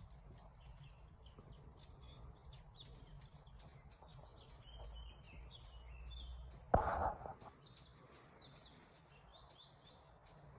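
Wild birds chirping, many short high notes in quick succession. A sudden knock with a brief rustle about seven seconds in is the loudest sound.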